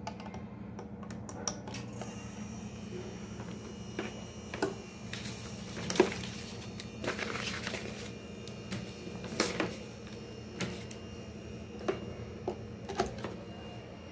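Scattered clicks, taps and knocks from hands handling a plug, an air fryer and its cardboard box and papers, with brief rustling around the middle and the sharpest knock about six seconds in, over a steady low hum.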